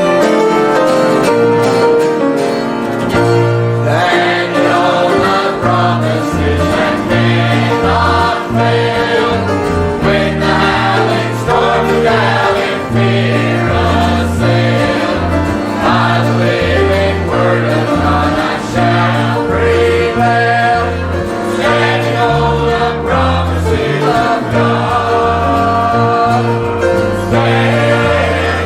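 Choir singing a gospel hymn with instrumental accompaniment and a steady moving bass line.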